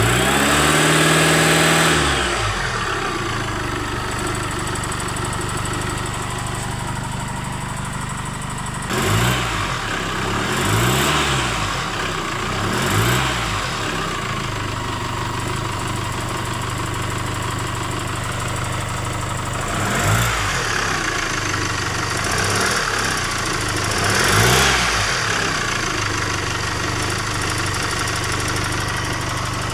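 2016 Chevrolet Trailblazer's diesel engine idling and being revved sharply and released, about seven quick throttle blips: one at the start, three in a row about two seconds apart roughly a third of the way in, and three more about two thirds in. The revving is a check for an intermittent ticking knock that comes and goes.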